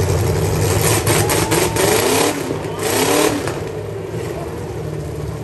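Demolition derby car engines idling, with a few sharp knocks about a second in and then one engine revved up twice, rising in pitch, before settling back to idle.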